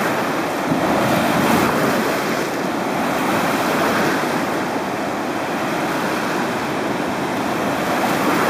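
Steady rush of fast river water churning and breaking below a weir's outflow.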